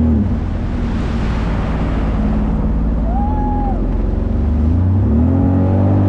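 Jet ski engine easing off the throttle just after the start, with water rushing, then speeding up again about five seconds in as its pitch rises.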